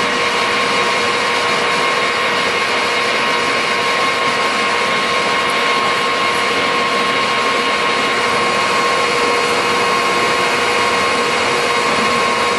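Harrison 21" x 64" centre lathe running steadily under power, its headstock and drive giving a steady whine over an even mechanical noise.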